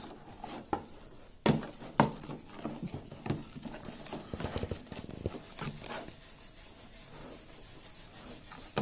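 A spoon knocking and scraping irregularly against a bowl as slime mixture is stirred, with two louder knocks about a second and a half and two seconds in.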